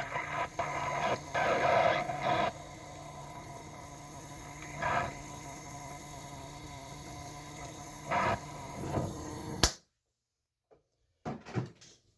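Oxyacetylene torch flame hissing steadily as it heats the end of an engine's balance shaft, to free the press-fit water pump shaft. The hiss cuts off sharply with a click near the end, leaving near silence and a few faint clicks.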